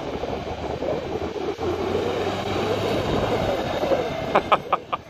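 Straight-piped diesel engine of a John Deere cab tractor running steadily as it drives, swelling a little in the middle. The tractor is being put through its paces after a clutch and PTO clutch rebuild.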